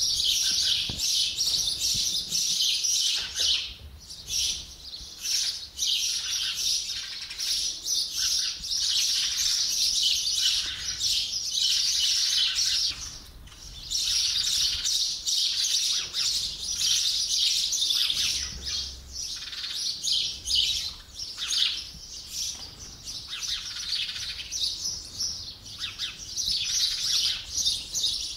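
Bird song: dense, high chirping and twittering that runs almost without a break, dipping briefly about four and thirteen seconds in.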